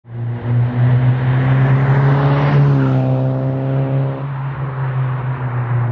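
Saab 9-3 engine running with a steady low hum and a rough haze above it, with a short rise in pitch around the middle.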